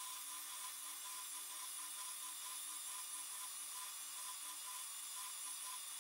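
Shop-built surface grinder's wheel grinding the top of a cast-iron lathe carriage gib, heard faintly as a steady hiss with a regular pulse a few times a second.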